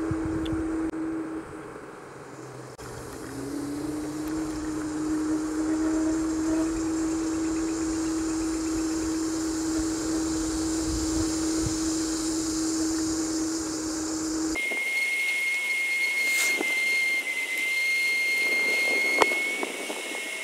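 Ninebot Max G30 electric scooter's hub motor whining steadily under way, with tyre and wind noise. The whine dies away about a second and a half in, then comes back rising in pitch as the scooter picks up speed. About three quarters of the way through, the sound changes abruptly to a thinner, higher steady whine.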